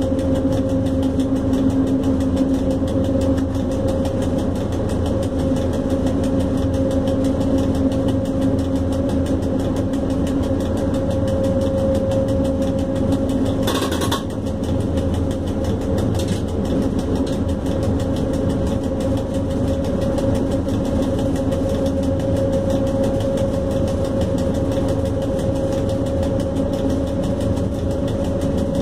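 Cab of a PKP ET22 electric locomotive under way: steady hum at two pitches over continuous rumbling track noise, with a brief crackle about halfway through.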